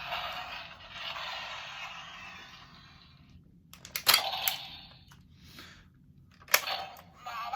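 Electronic music and sound effect from a Super Sentai transformation toy's small speaker fading out over the first three seconds, followed by a few sharp plastic clicks and knocks as the toy is handled, about four seconds in and again near six and a half seconds.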